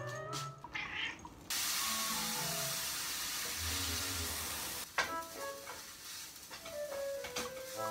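Food sizzling in a hot frying pan, a steady sizzle that starts suddenly about one and a half seconds in and cuts off abruptly near five seconds, over gentle background music.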